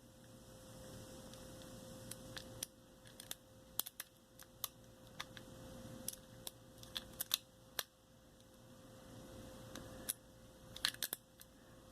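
Irregular small metallic clicks and ticks of a homemade lock pick and tension wrench working the pins in the keyway of a Master Lock 410 lockout-tagout padlock, with a quick cluster of clicks near the end.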